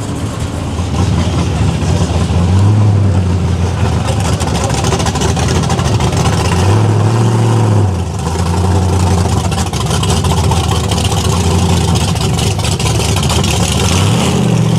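V8 engine of a Nash Metropolitan gasser running at a rumbling low-speed idle as the car rolls along, blipped three times: short revs about two, seven and fourteen seconds in.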